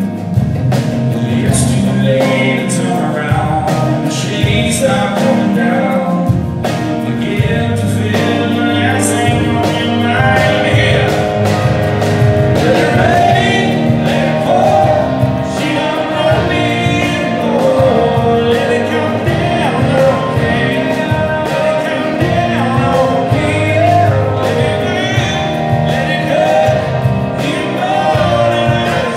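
Live acoustic country band: a male lead voice singing over strummed acoustic guitars, electric keyboard and hand percussion.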